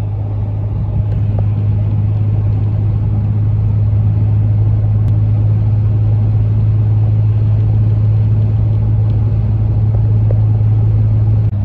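Ram pickup cruising at highway speed, heard from inside the cab: a steady engine and road drone with a strong, even low hum.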